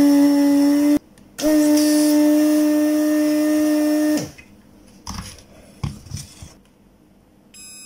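The built-in vacuum pump of a Weller electric desoldering gun hums steadily in two runs, the first stopping about a second in and the second lasting nearly three seconds, as it sucks molten solder off a component's pins on a circuit board. Some light knocks and handling noises follow as the freed part is pulled off.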